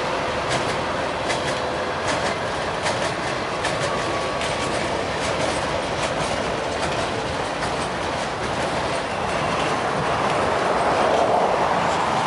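Freight train cars rolling past: a steady rumble with the wheels clacking in irregular sharp clicks over the rail joints, swelling louder near the end.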